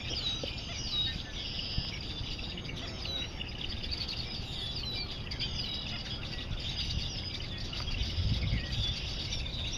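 Many birds calling together, a steady chorus of short high chirps that each slide down in pitch, over a low rumble.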